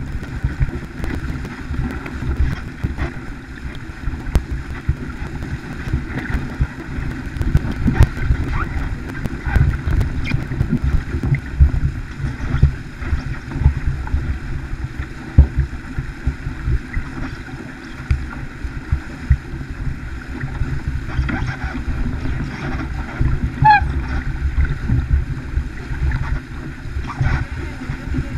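Wind buffeting the microphone and water rushing and splashing along the hull of a heeled racing sailboat sailing upwind. A brief high squeak comes near the end.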